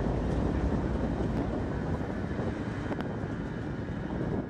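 Covered hopper cars of a grain train rolling past: a steady rumble of steel wheels on rail, easing slightly about halfway through, with a few faint clicks.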